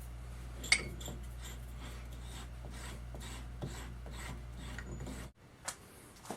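A hand file rasping on metal in short, regular strokes, about three a second, over the steady hum of a running machine motor. The hum cuts off abruptly about five seconds in.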